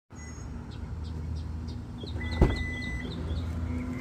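Low steady rumble of a car, with a run of short high chirps and one sharp click about two and a half seconds in.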